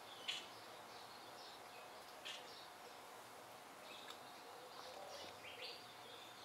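Faint bird chirps, short calls every second or so over a quiet background hiss.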